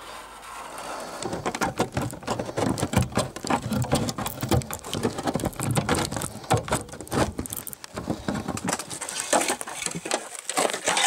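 Hand tin snips cutting a curve through thin sheet steel: a fast, irregular run of crunching snips and scraping metal, starting about a second in.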